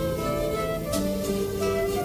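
Instrumental music: plucked string notes over held tones, with a few light percussive hits.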